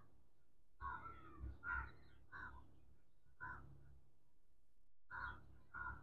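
Crows cawing faintly: about half a dozen short caws in small runs, with a pause of over a second around the middle.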